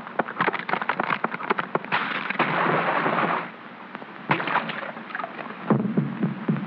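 Cartoon sound effects: a rapid run of sharp clicks as a beaver gnaws through a tree, then a long noisy crash as the tree falls, and a single sharp knock about four seconds in. Near the end, music with a steady low drumbeat starts.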